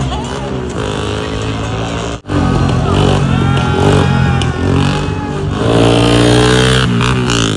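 Small tuned motorcycle engine revving hard, its pitch rising and falling again and again, with traffic noise around it. The sound cuts out for a moment about two seconds in.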